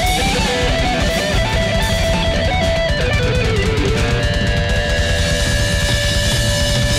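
Live rock band playing: an electric guitar lead with bent, sliding notes over drums and bass, then a long held note through the last few seconds.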